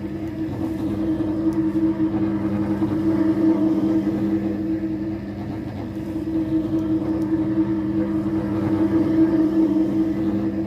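Single-disc rotary floor machine running as it polishes a marble floor: a steady motor hum over a grinding rumble, swelling and easing a little in loudness as it is moved.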